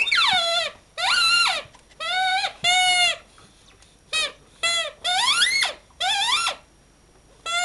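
Squeaker in a plush soccer-ball dog toy, squeaked over and over as a Shiba Inu bites down on it: about eight high squeaks, some rising and falling in pitch, with a short pause a little past the middle.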